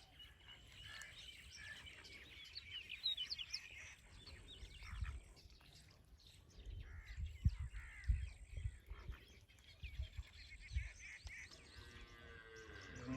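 Birds chirping intermittently in short, quick calls, with a few dull low thuds in between.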